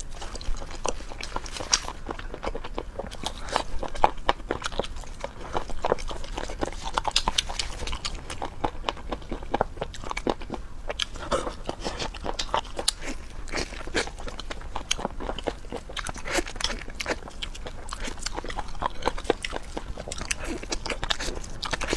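A person eating close to a clip-on microphone: many crisp bites and crunches with chewing, in quick irregular clicks throughout.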